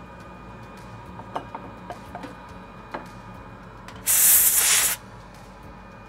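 Aerosol can sprayed in one hiss of just under a second, about four seconds in, to clean the freshly soldered area of a circuit board. A few light clicks and taps come before it.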